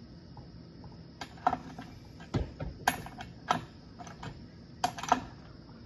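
Irregular hard clicks and clacks of plastic and metal parts being handled, starting about a second in, with a few sharper knocks among them.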